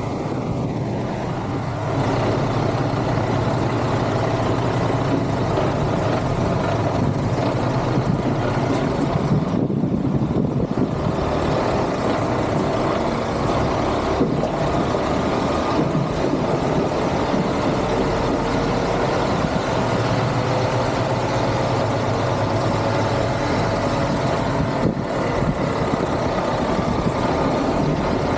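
Lorry's diesel engine running steadily, with a faint tone slowly rising in pitch through the second half.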